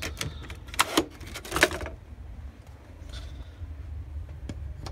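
Handling noise on a Kodak carousel slide projector's plastic housing: a few sharp clicks and knocks in the first two seconds, the loudest about a second and a half in, then only a low steady rumble.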